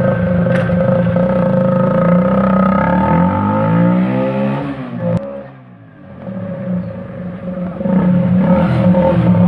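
Single-cylinder engine of a TVS Apache RTR 160 motorcycle running through a long homemade extension pipe fitted to its silencer. The exhaust note falls in pitch and fades as the bike rides away, then grows loud again near the end as it comes back.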